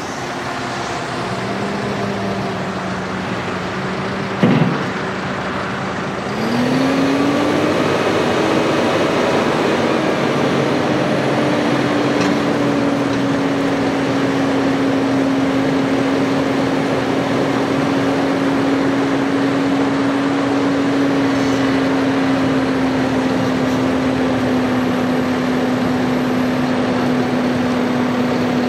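Kubota M7-151 tractor's four-cylinder turbo diesel running at idle, with one sharp knock about four seconds in. A couple of seconds later the engine revs up and holds a steady higher speed, its pitch sagging slowly as it drives the front-end loader's hydraulics to raise and lower the bucket.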